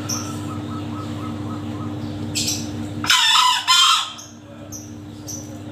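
Male green junglefowl crowing once about three seconds in: a short, high, two-part crow. Small birds chirp faintly in the background.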